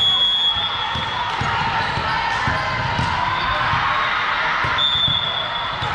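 Ball bouncing and being struck on a gym floor, repeated short thuds over a busy crowd hubbub. A single high whistle tone, which fits a referee's whistle, is held about a second at the start and again for about a second near the end.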